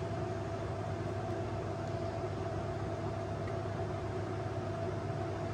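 Steady mechanical hum and hiss with a faint constant whine, like a running air conditioner or fan, unchanging throughout.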